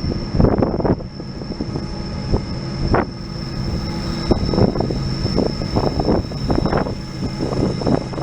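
Diesel locomotives of a freight train running with a steady low engine drone, while irregular gusts of wind buffet the microphone.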